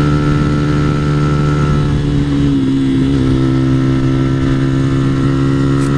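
2014 Yamaha YZF-R15 v2's 150 cc single-cylinder engine running steadily through a YRD aftermarket exhaust, under load climbing a steep road. Its note drops slightly about two seconds in, then holds.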